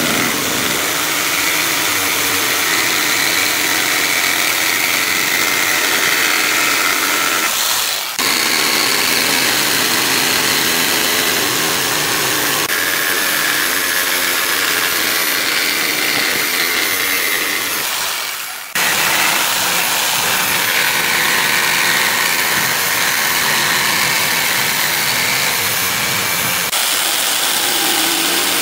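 Electric jigsaw cutting through a wooden board: the steady, high buzz of the motor and reciprocating blade in the wood. It drops out briefly twice, about eight seconds in and again around nineteen seconds in, then picks straight back up.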